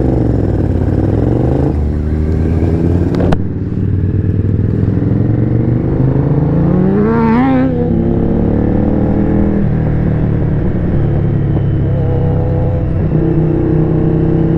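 V-twin sport motorcycle engine heard from the rider's seat, pulling away and running under way. There is a sharp click a little over three seconds in, and a rising rev about six to seven seconds in before the engine settles into a steady run.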